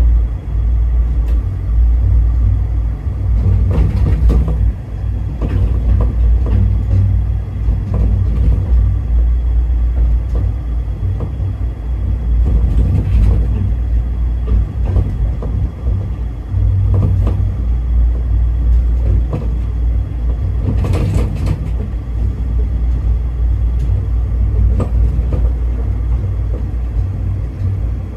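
Skyrail suspended car running along its overhead guideway: a steady low rumble, with a few short clatters, the strongest about three-quarters of the way through.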